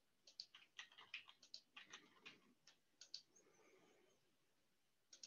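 Faint typing on a computer keyboard: an irregular run of key clicks for about three seconds, then two more clicks near the end.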